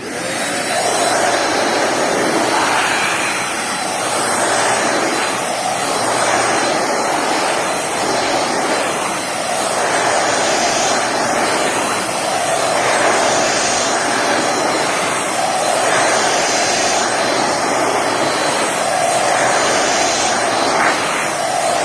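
Bissell Pet Hair Eraser corded handheld vacuum switching on and running, a steady motor whine under a rush of air. Its loudness swells and dips slowly as it is worked over a fabric chair, picking up cat hair.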